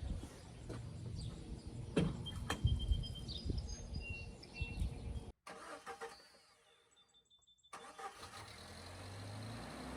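Some knocks and clatter with birds chirping, then after a brief break the 1997 Jeep Wrangler TJ's 2.5-litre four-cylinder engine idles steadily from about eight seconds in.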